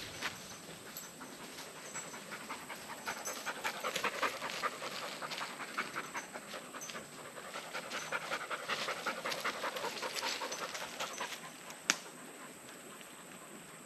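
A dog panting in a quick, even run of breaths, strongest through the middle of the stretch, with one sharp click near the end.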